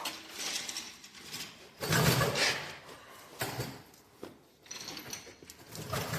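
Irregular scraping, rustling and knocking as extension cords and a work light are dragged and repositioned, with the loudest rough scrape about two seconds in.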